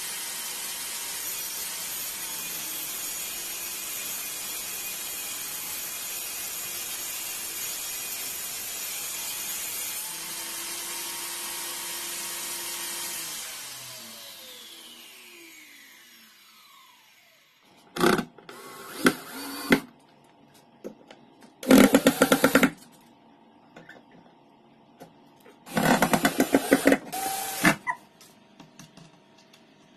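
Circular saw mounted under a homemade plywood table saw running steadily, then switched off and winding down with a falling pitch over about four seconds. Then a small cordless drill runs in several short bursts.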